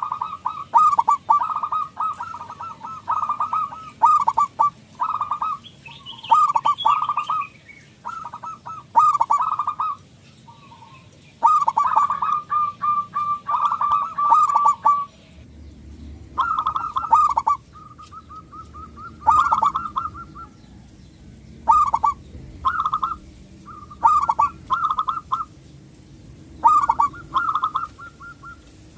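Zebra dove (perkutut) singing: loud, rapid cooing phrases of quick pulsed notes, repeated again and again with short pauses between them.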